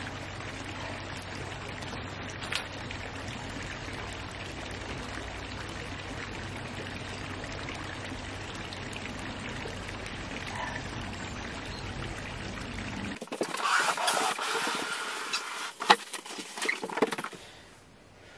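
Water trickling steadily over the stones of a garden rockery water feature, with a steady low hum under it. About two-thirds of the way in, a louder few seconds of rustling and sharp knocks takes over, then it drops quieter.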